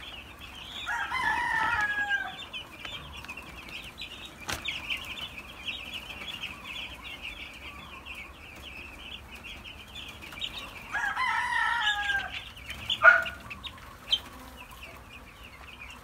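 A flock of young broiler chickens peeping without a break in a dense high chatter. A rooster crows twice, about a second in and again about eleven seconds in, and there is a sharp click just after the second crow.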